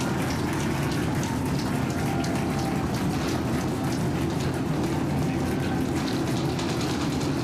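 Starship's Super Heavy booster with its 33 Raptor rocket engines firing during ascent: a steady, loud rumble full of dense crackling.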